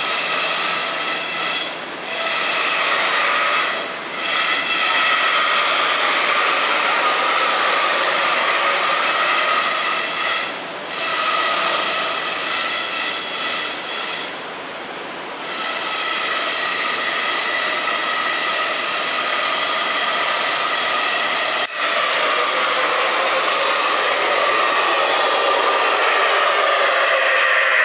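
Hiteco 20 kW spindle of a large 5-axis CNC router running at high speed, its long cutter milling expanded polystyrene foam: a steady, loud whine with several tones over a hiss. The whine dips briefly a few times, about 2, 4, 10 and 15 seconds in, as the cut changes.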